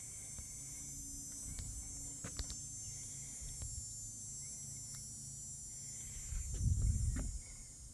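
Steady high-pitched chorus of summer insects, with a low rumble beneath, a few faint clicks, and a louder low rumble near the end.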